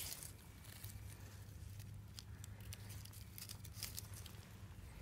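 Faint, scattered rustles and crackles of dry pine needles and fallen leaves as a hand searches through the forest floor litter.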